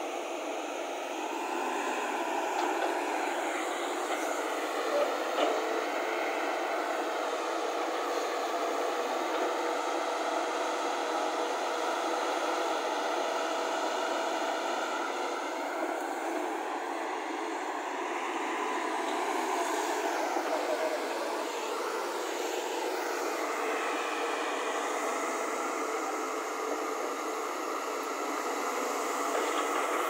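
JCB tracked excavator's diesel engine and hydraulics running steadily while digging mud, with a whir whose pitch rises and falls now and then as the arm works.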